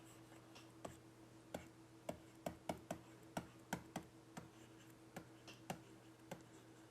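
Faint, irregular clicks, roughly two or three a second, over a faint steady electrical hum.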